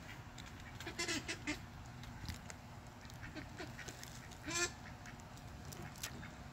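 Mallard ducks giving a few short quacks, a cluster about a second in and the loudest one about four and a half seconds in.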